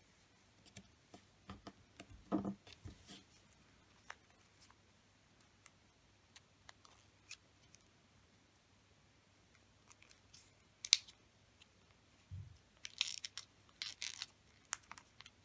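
Origami paper being folded and creased by hand: faint rustles and taps on the mat, a sharp crisp click about eleven seconds in, and a burst of paper crinkling near the end as the folds are pressed down.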